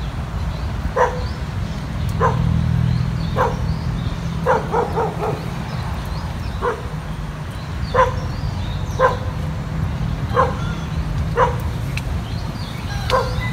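A dog barking off and on, short barks roughly once a second with a quick run of several in a row about five seconds in, over a steady low rumble.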